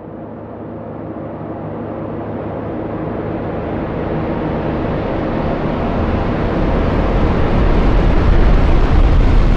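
Cinematic riser sound effect: a long noisy swell that grows steadily louder and brighter, building tension.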